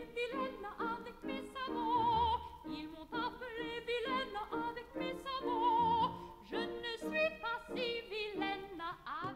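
Classical music with an operatic singing voice; its long held notes waver in a wide vibrato.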